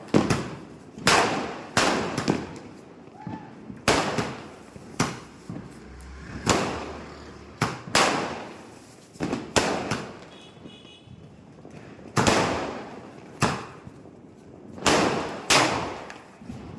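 Royal 60 multi-shot firework cake firing shot after shot: about eighteen sharp bangs, roughly one a second with some coming in quick pairs, each trailing off in an echo. There is a pause of about two seconds partway through.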